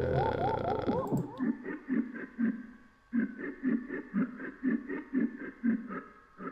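Pad part of an electronic track made from chopped cough and voice samples, played back as an even pitched pulse about four times a second, with a hollow, pan-like tone. Short repeated rising glides open it.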